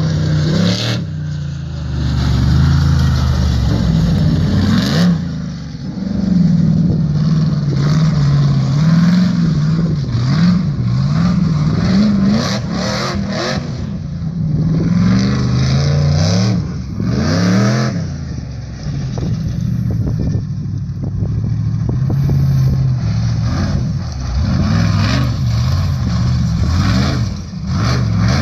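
Off-road buggy's engine revving hard as it is driven over a dirt track, its pitch rising and falling over and over with throttle changes.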